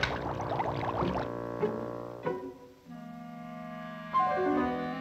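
Orchestral cartoon score. A busy passage for about the first second gives way to held bowed-string notes, with low cello and bass notes from about halfway and higher notes coming in near the end.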